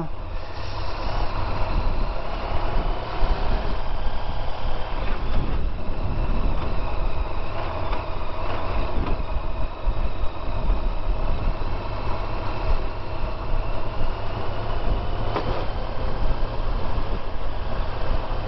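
Honda VFR1200X Crosstourer's V4 engine running at a fairly steady pace while the motorcycle is ridden, with low wind rumble on the microphone.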